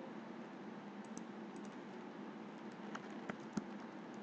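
Typing on a computer keyboard: a few sparse, irregular key clicks over a faint steady hiss.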